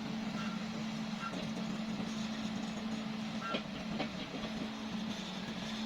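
Excavator engine running with a steady hum, with a few sharp metal knocks and short squeaks over it.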